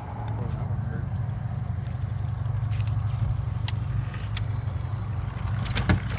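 Boat motor running with a steady low hum, with a few sharp clicks and a louder knock near the end.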